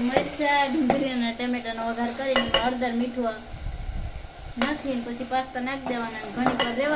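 Chopped tomato, onion and chilli frying in oil in a steel pan, stirred with a metal spoon, with a few knocks of the spoon on the pan. A voice carries on over the sizzling.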